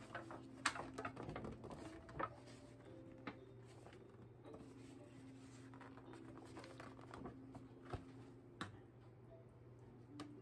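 Fork scraping and tapping against a disposable aluminium foil pan while meat sauce is spread, with the thin foil crinkling as the pan is tilted and handled. A quick run of clicks and crinkles in the first couple of seconds, then only scattered taps.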